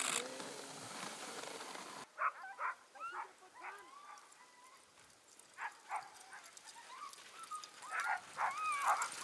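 About two seconds of steady hiss, then sled dogs whining and yipping in short cries that rise and fall in pitch, several dogs at once.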